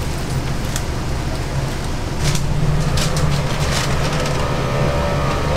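Oil sizzling in a commercial deep fryer over a steady low hum, with several light metal clicks from the wire fry basket being handled.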